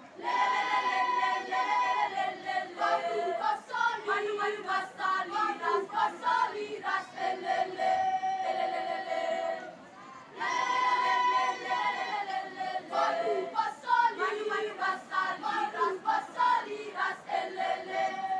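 Mixed school choir singing: long held chords, then a quicker passage of short notes, a brief pause about ten seconds in, and the same phrase sung again.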